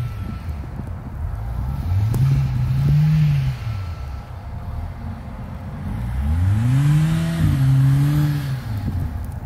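Mercedes-AMG GLA45's turbocharged four-cylinder engine accelerating twice, rising in pitch and dropping away; the second pull climbs, drops briefly about two-thirds of the way in, then holds before fading. Wind is heard on the microphone.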